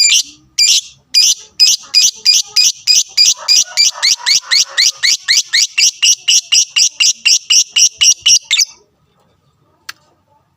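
Lovebird calling: a long run of high-pitched repeated chirps, about two a second that quicken to three or four a second, then stop abruptly near the end, followed by a couple of faint clicks. It is a 'fighter' call of the kind used to rouse other lovebirds into calling.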